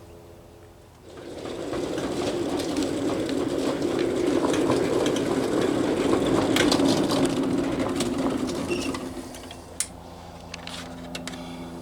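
Small 5-inch-gauge ride-on locomotive running along the backyard track, its wheels rumbling on the rails with a steady motor hum. The rumble builds about a second in, is loudest in the middle and fades after about nine seconds, with a few sharp clicks along the way.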